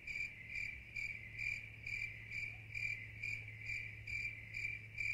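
A cricket chirping steadily, about two chirps a second, over a faint low hum.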